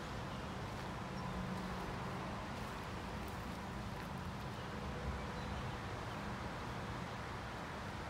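Steady outdoor background noise with a low hum underneath and no single clear event.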